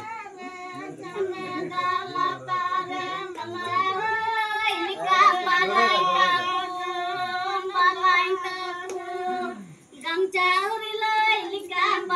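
Women singing together unaccompanied in high, held voices, with a brief break in the song just before the last couple of seconds.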